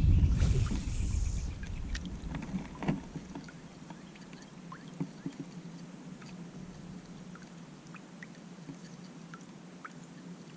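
Movement and gear handling in a fishing kayak: a loud low rumble with a hiss in the first second or so, then scattered small clicks and taps over a faint steady hum.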